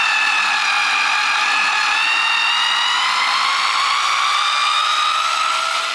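Small cordless power driver spinning out the set screw that holds the sprocket mast on a kayak pedal drive: a steady motor whine that slowly rises in pitch as it runs.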